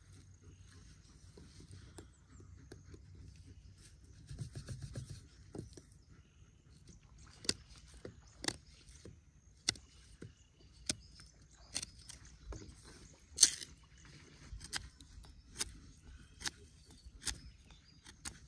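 Knife blade cutting into a wooden bow-drill spindle, a sharp click with each stroke about once a second from about seven seconds in. A brief rustle comes before the cutting starts.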